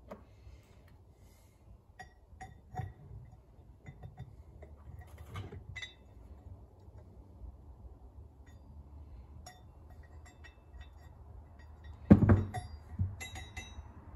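Light metallic clicks and clinks of U-joint parts and hand tools being handled, with one loud knock about twelve seconds in and a smaller one about a second later.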